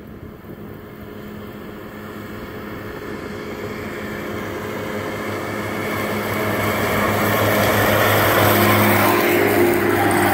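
Fendt 720 tractor engine running steadily under load while driving front and rear disc mowers through standing hay. It grows steadily louder as the tractor approaches.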